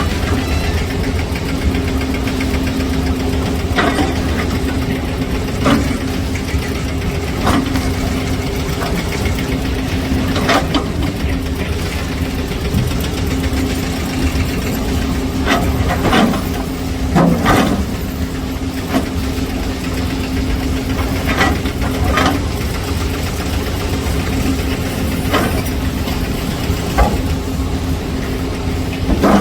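Kobelco SK520 hydraulic excavator's diesel engine running steadily under load, with sharp knocks and scrapes of the steel bucket against hard rock at irregular intervals of a few seconds.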